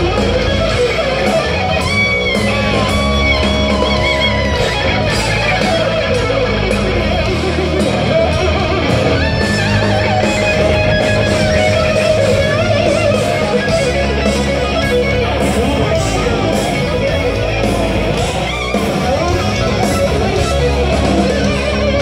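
Loud live heavy metal: an electric guitar plays lead lines with pitch bends and a long held note about ten seconds in, over distorted rhythm guitar, bass and drums, heard through the festival PA from within the crowd.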